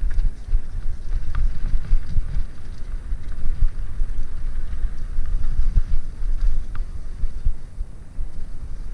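A mountain bike rolls over a leaf-covered dirt trail, making a continuous uneven low rumble from the tyres and the bike, with wind buffeting the microphone. A few faint light ticks or rattles come through.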